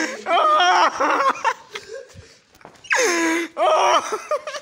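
People laughing and shouting, with loud outbursts at the start and again about three seconds in, and a quieter stretch between.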